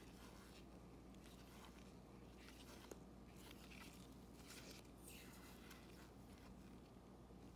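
Very faint swishes and light ticks of Topps baseball cards being slid one behind another in gloved hands, over a low steady hum.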